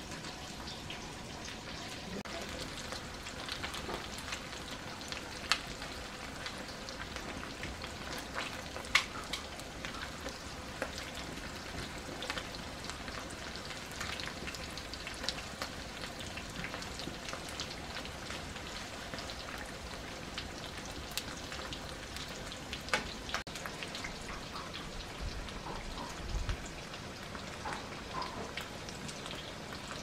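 Food sizzling in hot oil in a pan over an open wood fire, a steady sizzle with occasional sharp pops.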